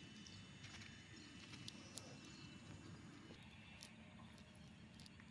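Near silence, with a few faint clicks and ticks as a cast net is handled by hand.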